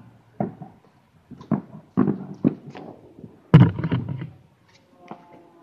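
A series of irregular dull thumps and knocks, the loudest about three and a half seconds in.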